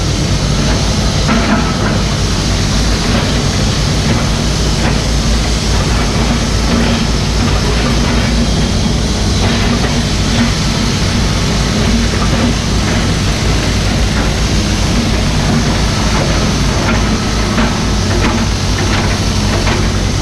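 Mini excavator's diesel engine running steadily under work, with scattered light clicks and scrapes over it.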